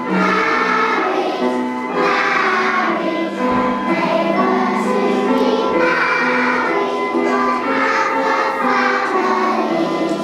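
Children's choir singing a song, with sustained notes changing pitch in phrases.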